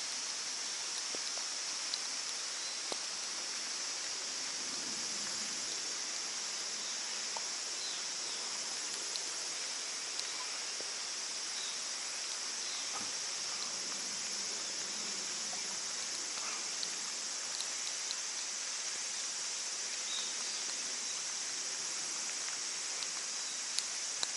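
Steady high-pitched insect chorus over a constant wash of running water, with a few faint ticks.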